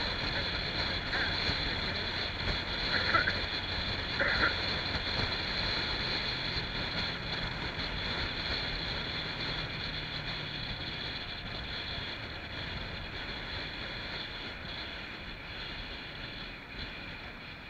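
Wind rush over a helmet microphone and the Honda Grom's small single-cylinder engine while riding, with three brief higher-pitched sounds in the first five seconds; it gradually grows quieter toward the end as the bike slows.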